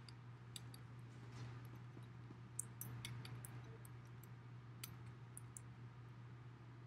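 Small paint roller rolling over roofing tar paper, making faint, irregular ticks and clicks over a steady low room hum.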